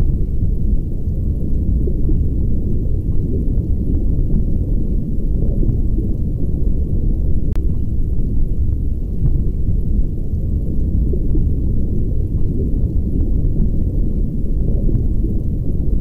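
Muffled, steady low rumble of water recorded underwater, as heard through a camera's waterproof housing, with faint scattered clicks.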